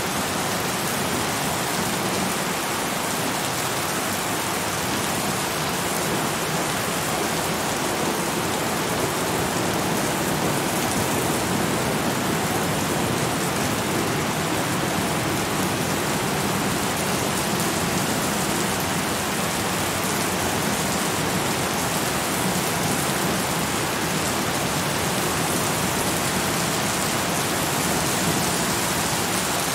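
Steady rain falling without letup, an even hiss.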